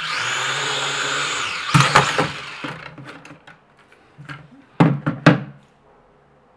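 Syma X5C quadcopter's four small motors and plastic propellers whining at a steady high pitch. The whine drops in pitch and dies away amid sharp knocks and clatter as the drone is handled, with two loud knocks about five seconds in.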